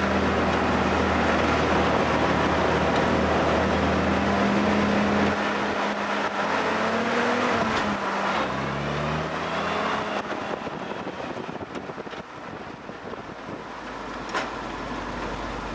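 1948 Willys Jeep's four-cylinder engine running as the Jeep drives a dirt trail: steady at first, then its pitch rises and falls a few times, and it runs quieter from about ten seconds in.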